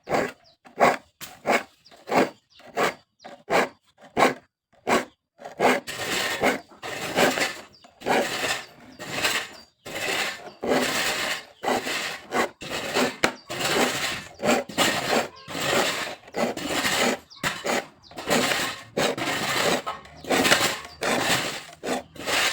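Freshly sharpened hand saw cutting through a randu-wood board in rhythmic back-and-forth strokes. The strokes are short and separate for the first few seconds, then become longer and run together.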